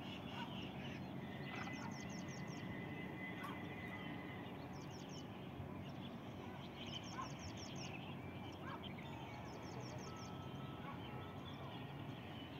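Small birds calling in short, rapid, high-pitched trills that recur every two to three seconds over steady outdoor background noise.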